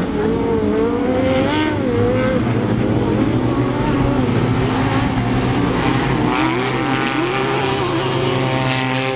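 Off-road race buggy engines running hard, their pitch rising and falling as they rev through the corners, over a steady low hum.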